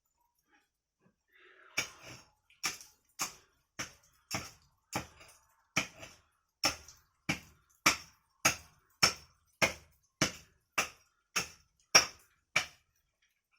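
A steady run of about eighteen sharp knocks, evenly spaced a little over half a second apart, starting about two seconds in. Each knock dies away quickly.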